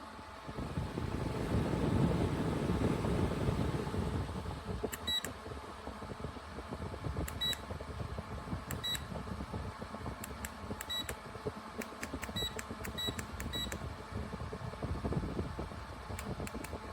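Rechargeable camping fan switched on and running, its airflow making a low rushing noise that is strongest during the first few seconds. About five seconds in, a series of seven short high beeps and several clicks follow, typical of the fan's buttons or remote being pressed to change settings.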